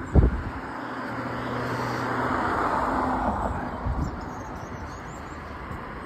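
A thump near the start, then a passing vehicle whose noise swells and fades away, with a couple of soft knocks after the peak.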